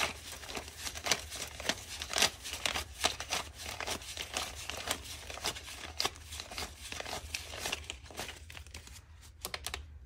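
A stack of paper US dollar bills being counted by hand: a quick run of crisp rustles and flicks as the notes are thumbed through one by one. Near the end the rustling stops and a few sharp clicks follow as calculator keys are pressed.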